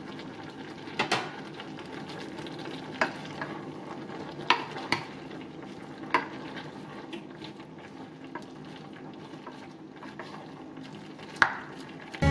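Wooden spatula stirring a stainless steel pot of simmering doenjang-braised anchovies and shishito peppers, over a steady low sizzle. Scattered knocks of the spatula against the pot, the loudest near the end.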